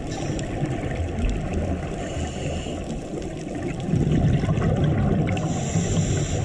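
Underwater ambience: a steady, muffled rush of water noise with little above the low range, plus a faint higher hiss about two seconds in and again near the end.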